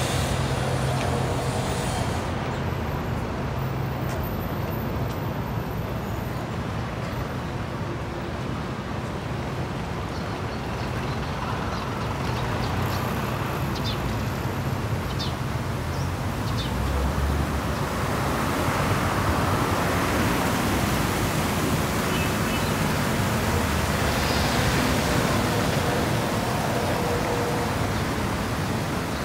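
Steady road traffic noise, swelling a little in the second half as vehicles go by.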